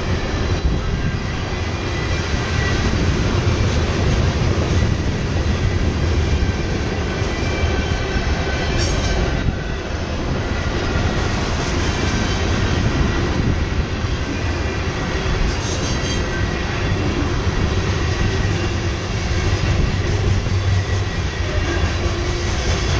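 Freight train rolling past at speed: a steady rumble of tank cars and covered hoppers on the rails, with a faint high steady whine from the wheels. Near the end a mid-train diesel locomotive goes by and the low rumble swells.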